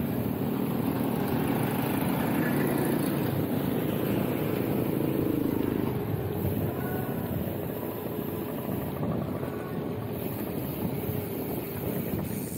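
Wind rushing over the microphone of a camera on a moving road bike, with a steady low rumble from the tyres and road. It eases a little about halfway through.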